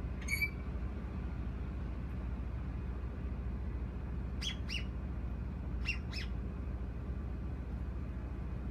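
Bird calls: one short call just after the start, then two pairs of quick, falling chirps around the middle, over a steady low hum.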